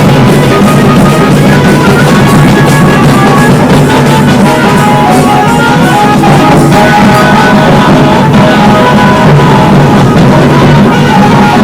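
A tasa drum band playing loud, distorted music: fast drumming with a melody line over it.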